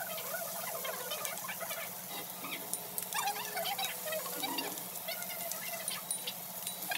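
Samgyupsal (pork belly) and seafood sizzling on a tabletop electric grill: a steady crackle full of small pops and thin squeaks of spitting fat, with occasional light clicks of metal tongs, over a steady low hum.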